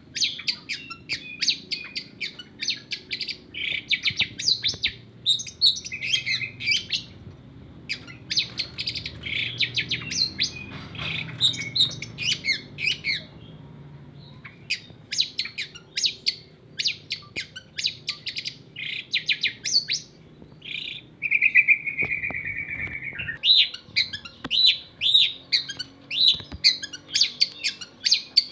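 Long-tailed shrike (cendet) song: a fast run of short, high chirps, several a second, broken by a brief pause and by a longer, drawn-out lower note about three-quarters of the way through. This is a lure song meant to provoke a cendet into singing.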